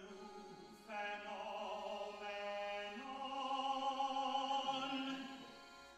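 Musical-theatre cast singing long held notes in an operatic style: a short held chord, then a new chord about a second in that is sustained and fades near the end.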